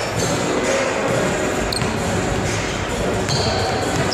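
Indistinct crowd chatter echoing in a gymnasium, with a few brief high squeaks of sneakers on the hardwood floor.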